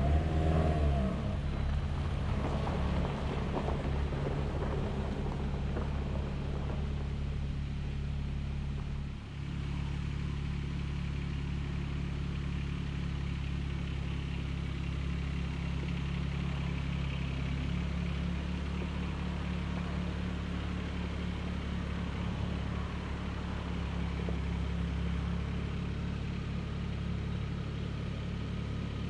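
An engine running steadily, its low hum holding an even pitch and briefly dropping about nine seconds in.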